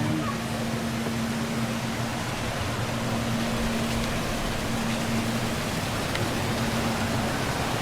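Steady rushing noise of fast-flowing river water, with a faint steady hum underneath that fades in and out.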